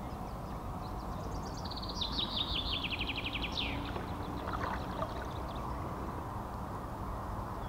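Quiet water sounds from an inflatable boat being rowed on a river. About two seconds in, a small songbird sings one quick trill of rapid notes that falls in pitch over about two seconds.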